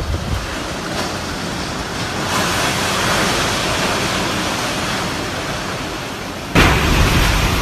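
Typhoon wind blowing hard, a dense steady rush with wind buffeting the microphone, growing stronger about two seconds in. Near the end it suddenly jumps louder and heavier.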